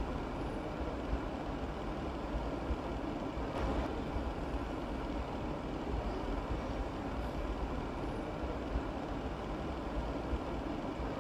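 A steady low rumble of background machinery noise, with a few soft taps of a chef's knife slicing a tomato on a plastic cutting board.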